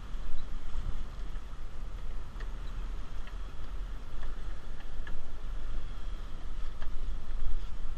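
Fishing boat's engine running steadily under way, with water washing in the wake and a few faint ticks.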